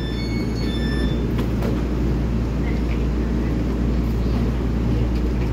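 Steady low hum and rumble of a TRA EMU3000 electric multiple-unit train standing at a platform with its doors open, its onboard equipment running. A brief electronic chime of a few short high tones ends about a second in.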